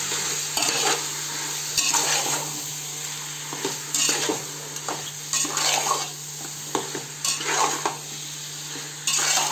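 Chicken pieces frying in oil in an aluminium pot with a steady sizzle, while a metal spatula stirs them, scraping and knocking against the pot in irregular strokes.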